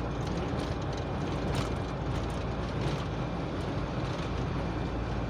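Steady engine and road noise inside a truck cab at highway speed, with a faint, thin, steady whistle: wind whistling at the windscreen.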